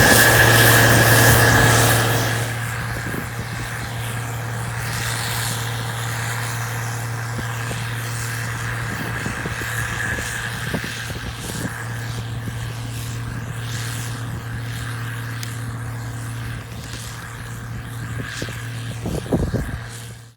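Gleaner R55 combine harvester running steadily in a wheat field, a deep engine hum with a steady high whine over it, louder for the first two seconds and then quieter. A few knocks near the end.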